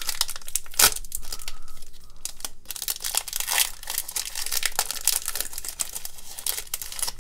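Foil wrapper of a Topps Series 2 baseball card pack crinkling and tearing as it is ripped open by hand, with a sharp crack about a second in.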